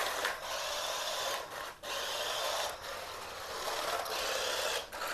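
Toy four-wheel-drive RC drift car running: its small electric motor and drivetrain whirring with a rasping sound, broken by several short breaks.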